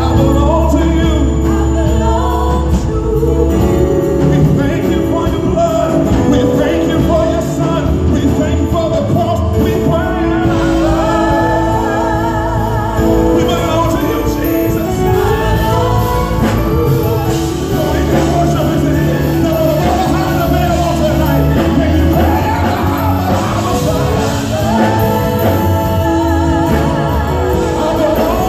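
Live gospel worship music: a male lead singer and a small group of backing singers singing together over instrumental accompaniment with sustained bass notes.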